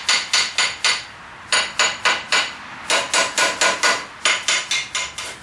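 Hammer tapping quickly on a rusty blacksmith's vise, in runs of four to six ringing metal taps with short pauses between. The tapping sends vibration through the vise to jar loose rust chunks left inside after electrolysis.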